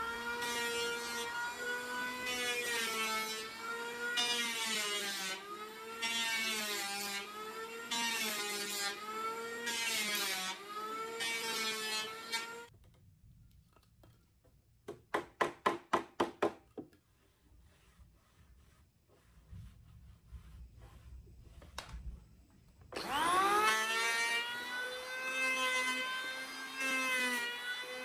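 Handheld electric woodworking power tool running under load, its motor pitch dipping and recovering about once a second as it works the wood. It stops about halfway through. A quick run of sharp taps follows, then the motor starts again near the end, rising in pitch as it spins up.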